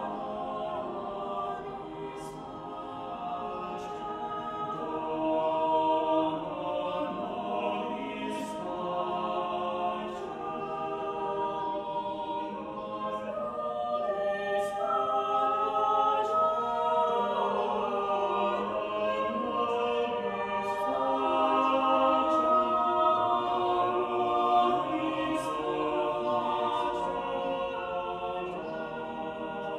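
Mixed chamber choir of about thirteen voices (sopranos, altos, tenors and basses) singing a cappella in several parts, with sustained chords moving throughout, in a concrete parking garage.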